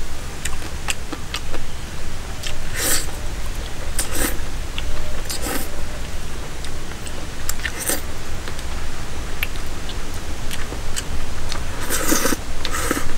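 Someone eating: biting and chewing, with small clicks and about six short, louder crunchy bursts, over a steady low rumble.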